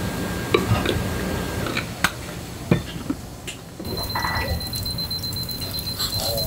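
Restaurant kitchen room noise with a few light clinks of crockery on the tray and a thin steady high tone underneath.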